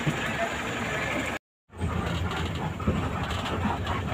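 Bus engine running, first heard from the street beside the open door, then, after a sudden gap of silence about a second and a half in, from inside the bus cabin as a steadier low rumble.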